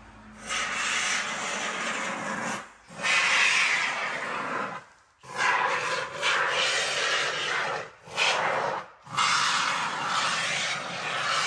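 Aerosol can of expanding polyurethane sealing foam hissing as the foam is sprayed through its straw nozzle, in about five bursts of one to three seconds with short breaks between them.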